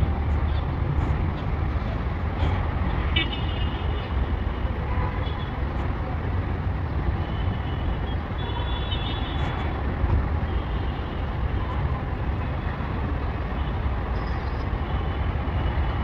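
Steady low rumble of road traffic heard from a height, with faint high tones about three seconds in and again around eight to ten seconds in.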